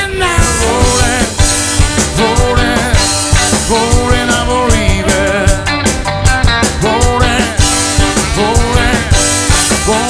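A rock band playing a song, with drums keeping a steady beat under melodic instrumental lines.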